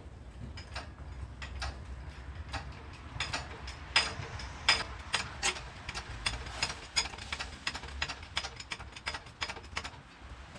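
Irregular metallic clicking and clinking, a few clicks a second, some ringing briefly, from metal tools and hardware being handled, over a low steady rumble.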